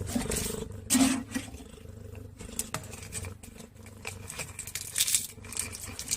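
A cat making a brief low growl about a second in, among scattered knocks and rustles.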